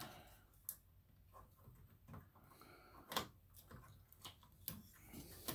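A few faint, sharp clicks and taps of small hand tools working on a circuit board, spaced a second or more apart.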